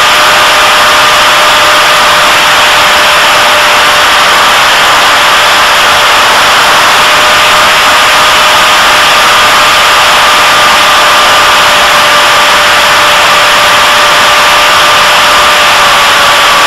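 Electric motor and propeller of an EFX Racer FPV model plane whining steadily at cruising throttle, heard through its onboard camera, with heavy wind rush over the microphone; the pitch sinks slightly near the end.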